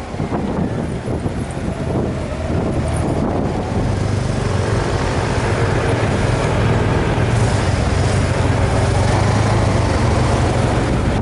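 Honda Gold Wing GL1500's flat-six engine running steadily at low town speed, heard from the rider's seat with road noise.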